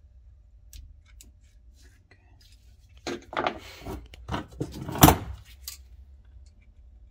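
Small hard plastic and metal objects being handled, rattling and clinking in a burst of clatters that starts about three seconds in and is loudest near five seconds, after faint scattered clicks.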